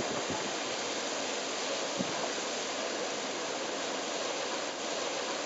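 Fountain water jets spraying and splashing onto the pavement, a steady hiss of falling water.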